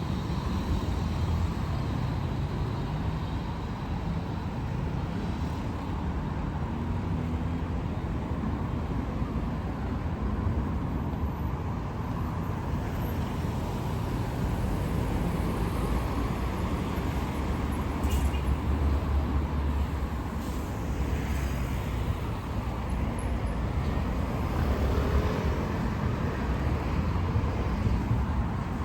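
Road traffic: a steady rumble of motor vehicles passing on a city street, swelling and easing a little as they go by.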